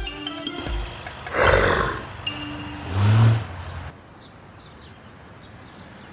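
Cartoon sound effects over fading music: a short burst of noise about one and a half seconds in, then a short low roar about three seconds in, the loudest sound, followed by a quiet background.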